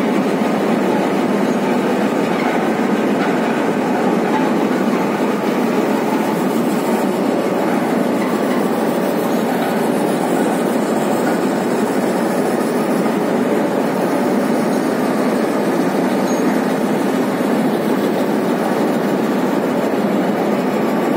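Steady loud noise of heavy industrial machinery: a large rail-mounted steel machine on flanged wheels, running without pause or change.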